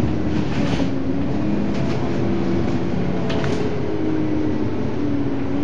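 Volvo Olympian 12M double-decker bus's diesel engine running as the bus drives along, heard from on board, its note drifting up and down a little. Three short hisses come through about half a second, two seconds and three and a half seconds in.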